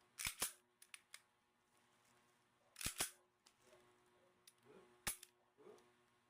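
Faint, sharp metallic clicks of a CF98 9mm pistol being handled in disassembly: two near the start, two about three seconds in and one more about five seconds in, with light scraping of parts in between.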